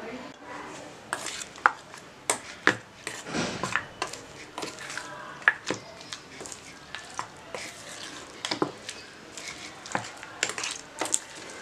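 A metal spoon stirring raw chicken pieces through a thick flour-and-egg marinade in a stainless steel bowl, clinking and scraping against the bowl at irregular intervals, some clinks ringing briefly.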